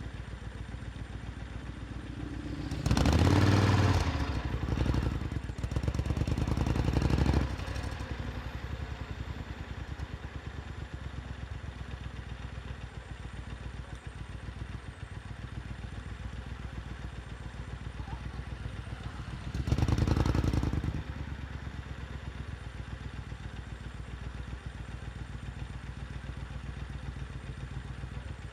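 Supercharged Triumph Thunderbird Storm motorcycle's 1700 cc parallel-twin engine running steadily, swelling louder briefly a few seconds in, again soon after, and once more about two-thirds of the way through.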